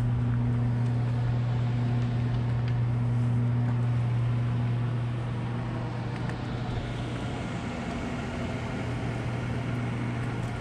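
Steady low mechanical hum from a nearby motor, running on at an even pitch over a wide rushing noise.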